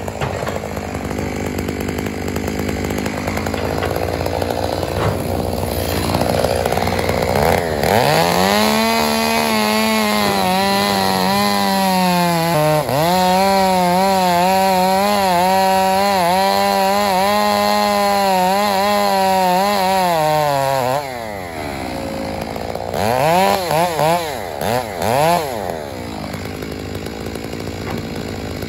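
Two-stroke chainsaw revved up and held at high revs for about thirteen seconds, with one brief dip in pitch partway through. It then drops back toward idle and is blipped several times near the end.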